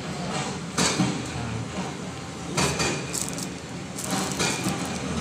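Potting soil being worked by hand into a plastic plant pot around the roots, with three short scraping bursts as it is pressed and shifted.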